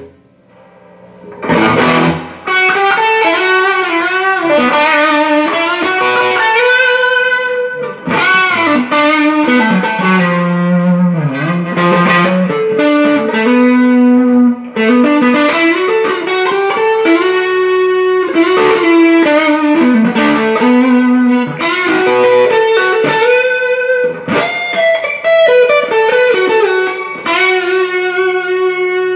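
Electric guitar played through a freshly serviced Fender Deluxe 112 Plus transistor combo amp: a melodic lead line of sustained notes with string bends and vibrato. Playing stops briefly just at the start, then carries on.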